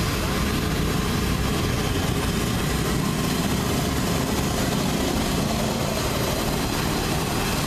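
Steady roadside din of motorbike and other street traffic engines, mixed with the hiss of battered tofu fritters deep-frying in a wok of bubbling oil over a gas burner.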